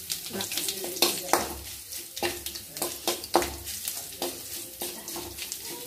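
Curry leaves, urad dal and garlic sizzling in hot coconut oil in a metal kadai, while a metal spatula stirs and scrapes against the pan in irregular clinking strokes.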